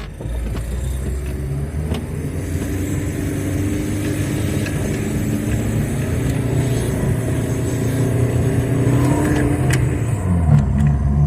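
Car engine running, with a steady low note that grows gradually louder and drops in pitch about ten seconds in.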